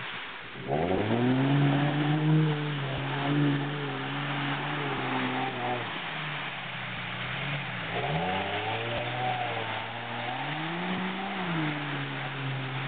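Jeep Cherokee XJ engine revving hard in bursts as it drives through deep mud, the pitch jumping up about a second in, again near the eight-second mark, and rising and falling near the end, over a steady rushing noise of the wheels churning through mud and water.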